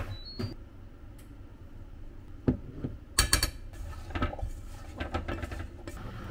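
Stainless steel mixing bowl clinking and rattling as diced eggplant is tossed and mixed with flour by hand. A burst of clattering about three seconds in is the loudest part, followed by lighter irregular clinks.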